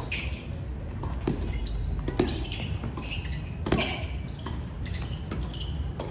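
Tennis ball struck by rackets and bouncing on a hard court during a doubles rally: about five sharp pops at uneven spacing, over a steady low rumble.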